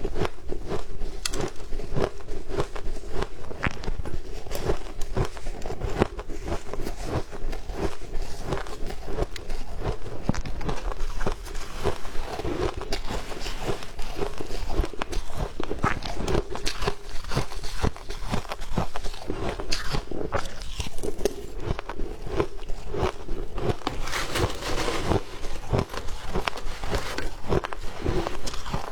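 A person biting and chewing shaved ice close to the microphone: a continuous run of crisp crunches and cracks, several a second.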